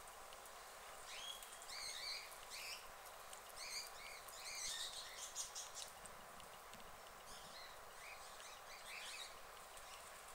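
Small birds chirping in clusters of short calls, about a second in, around four to five seconds in and again near the end. Under them, faint crackling as a guinea pig pulls at and chews dry straw.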